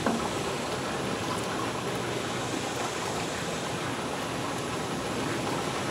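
Steady, even hiss of outdoor background noise, with no distinct clicks or knocks standing out.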